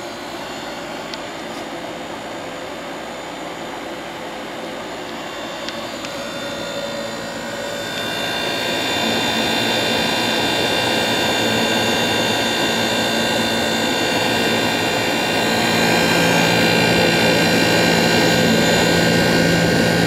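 1971 McGraw Edison Thomas Edison 6000 BTU window air conditioner running, its fan and compressor cooling: a steady airy rush with a hum of several even tones. It grows louder about eight seconds in and again near the end.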